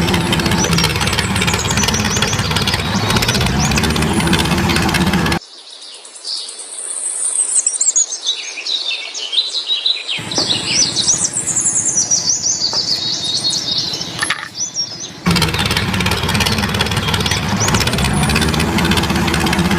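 An engine-like motor running steadily, cut off abruptly after about five seconds by birds chirping; the motor sound comes back after about fifteen seconds.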